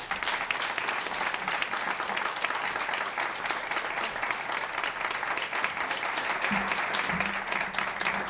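Audience applauding, many hands clapping steadily after starting abruptly.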